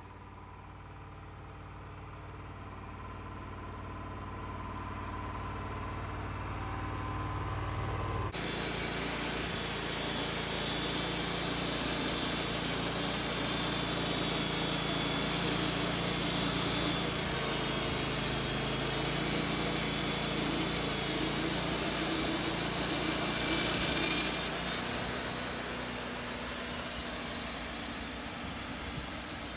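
Portable sawmill running: a steady engine hum that changes abruptly about eight seconds in to a louder, steady hissing rush with the engine still underneath, as the saw cuts through a log.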